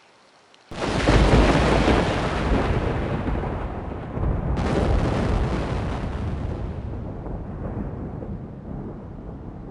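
A loud blast-like rumble that starts suddenly about a second in, with a second blast about four seconds later, then fades slowly.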